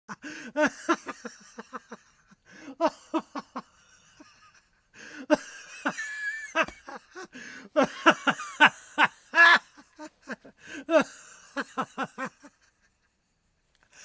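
A man laughing heartily in about five bouts of rapid ha-ha pulses with short breaks between them. The laughter stops about a second before the end.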